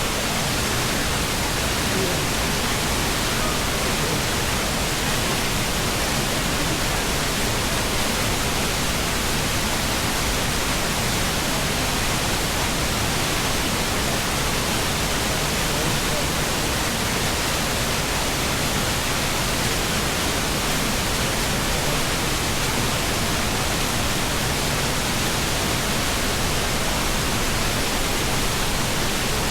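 Boyana River, a mountain stream, rushing steadily over rocks: an unbroken wash of water noise.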